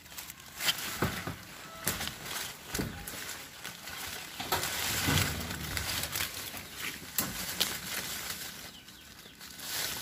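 Star apple tree leaves and twigs rustling and crackling as a hand pushes through the branches to pick fruit, with many sharp irregular crackles and snaps.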